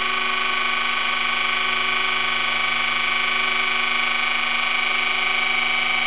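Taft Peirce surface grinder's wheel grinding the outside of a hardened steel drill bushing turned on motorized centers: a steady whine of several tones over a light grinding hiss. It is a pass at an unchanged depth setting, with only light sparking from the contact.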